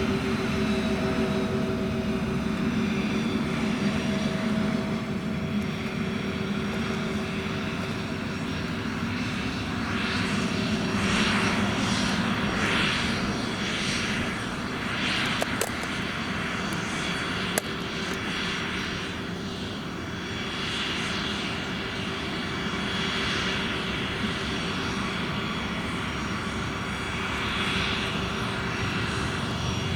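Twin Williams FJ44 turbofan engines of a Cessna CitationJet CJ2+ running: a steady whine over a jet rush, with the tone slowly swelling and shifting.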